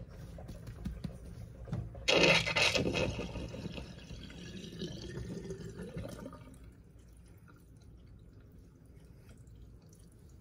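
Bathwater draining from a stainless steel kitchen sink. It starts with a sudden loud rush about two seconds in, gurgles down the drain, and fades out by about six seconds.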